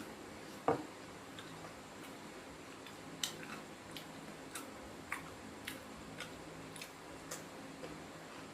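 Close-up chewing of crispy panko-breaded fried basa fish: short sharp crunches at roughly two a second, after a single louder knock under a second in.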